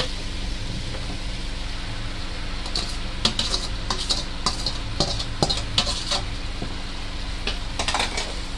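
Boiled macaroni tipped from a steel strainer into a hot pan of fried chicken and vegetables: a steady low frying sound under a run of sharp metal clinks and taps against the pan from about three to six seconds in, with a few more near the end.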